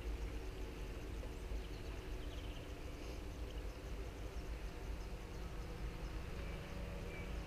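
Outdoor ambience: wind rumbling on the microphone with a steady faint hum underneath and a few brief bird chirps.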